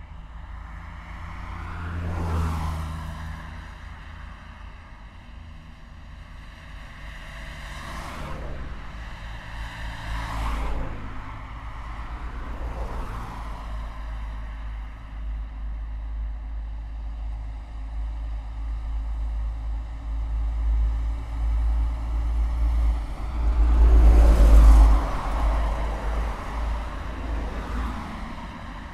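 Dense road traffic: vehicles pass close by one after another over a constant low rumble, each swelling and fading. The loudest pass, with the heaviest rumble, comes near the end.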